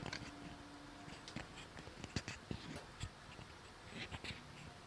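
Batter drops frying in hot oil in a small steel kadhai: faint crackling and sizzling, with scattered light clicks.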